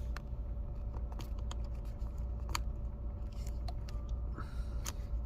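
Scattered light clicks and taps of fingers working a new MacBook Air battery's connector into its socket on the logic board, over a steady low hum.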